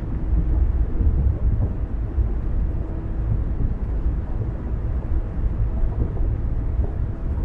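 A car driving at steady speed: a constant low rumble of tyres on the road and the engine.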